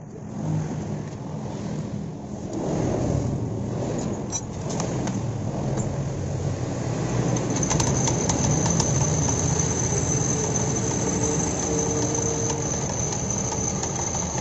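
Honda Genio scooter engine running with its CVT cover off, the drive belt and pulleys spinning in the open. It gets louder about three seconds in. A jingling rattle and a clattering knock come from the CVT, which the mechanic puts down to a loose ring on the clutch shoes and a likely stretched drive belt.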